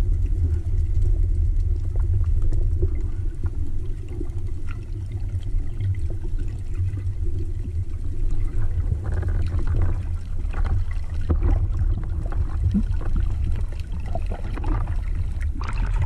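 Steady low underwater rumble of water rushing past a camera as a spearfisher swims toward the surface, with bubbling and crackling in the second half. There is a splash just before the end as the camera breaks the surface.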